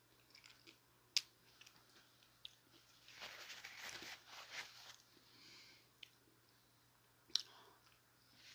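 Close-miked eating of a chicken taco: bites and chewing, with two sharp clicks, one about a second in and one near the end, and a louder stretch of chewing in the middle.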